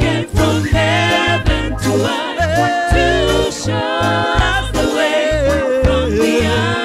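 Live church praise band playing a reggae-style gospel song: a lead singer and backing vocalists over a heavy bass line, keyboard and drums.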